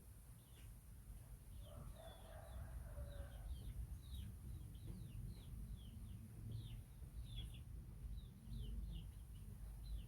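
Birds chirping: short, high, falling chirps repeating about twice a second, with a brief lower call about two seconds in, over a low rumble.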